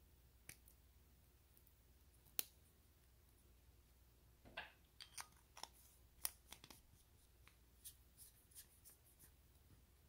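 Faint handling clicks and taps as a rubber grip ring is stretched and worked onto a copper flashlight's tailcap. There is a single sharp click about two and a half seconds in and a short scrape around four and a half seconds, then a string of light ticks.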